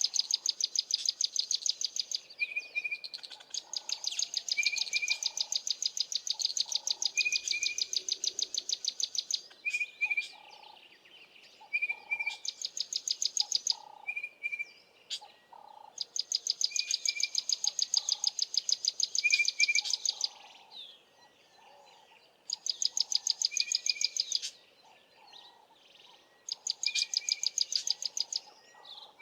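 Bush birds calling: runs of a rapid, high pulsing trill lasting a few seconds each with short pauses between, over a short high chirp repeated about every two seconds and softer lower calls.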